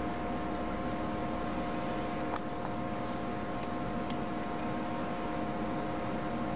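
A few short, faint clicks, about five, as fingers tap an Android phablet's touchscreen to open search and type on the on-screen keyboard, over a steady hiss and electrical hum.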